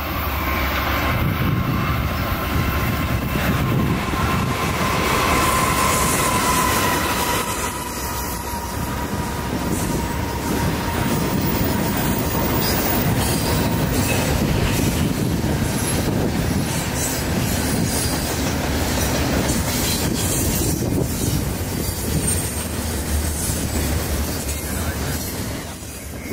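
A freight train passing close by. The lead diesel locomotive, a BC Rail GE C40-8M, goes by in the first several seconds, then double-stack container well cars roll past with their wheels clacking over the rails. A thin steady squeal runs through roughly the first eight seconds.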